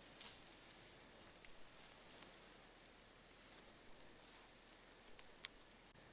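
Faint rustling with a few sharp clicks, near the edge of silence: brush and twigs stirred by someone moving quietly through the bush.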